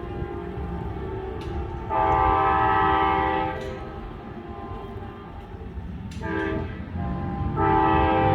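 Amtrak passenger locomotive's multi-chime air horn sounding a chord. A quieter blast gives way to a loud long blast about two seconds in, then a short blast a little past six seconds, and another long blast begins near the end: the long-long-short-long pattern blown for a grade crossing.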